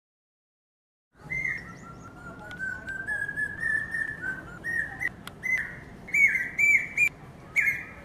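Common hawk-cuckoo calling: a series of shrill whistled notes, starting about a second in, that climb steadily in pitch and grow louder, ending in quick repeated phrases.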